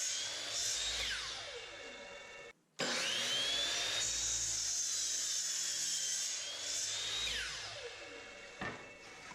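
Miter saw winding down with a falling whine, then, after a brief silence, spinning up with a quickly rising whine, running at speed through a cut in lumber for a few seconds, and winding down again near the end.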